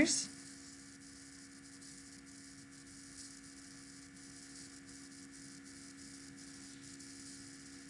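Steady electrical mains hum with several fixed tones, under faint scratching of a pen writing on a paper worksheet.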